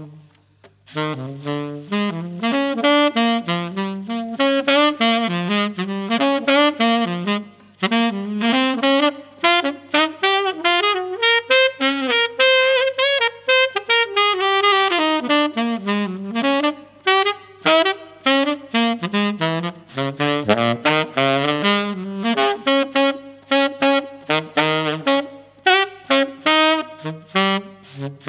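Tenor saxophone playing a jazz melody in short phrases, the loudest thing throughout, over a quieter backing of Hammond organ, guitar and drums.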